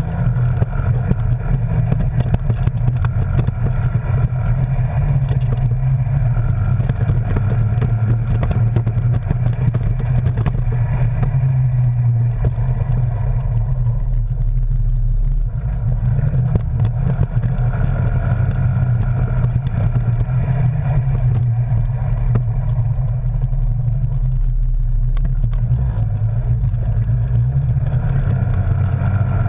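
Arctic Cat Wildcat Sport side-by-side's engine running as it drives along a trail, heard from on board, its revs rising and falling as the driver works the throttle, with a short easing off about halfway through.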